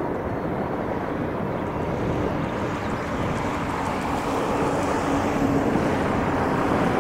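Airbus A380's four jet engines on final approach: a steady rushing noise that grows slowly louder and brighter as the airliner nears, with a faint steady whine.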